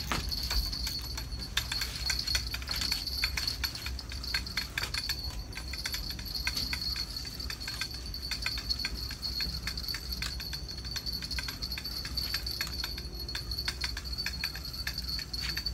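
Night ambience over the water: a steady high-pitched insect-like trill, with many small irregular clicks and light jingling, over a low hum.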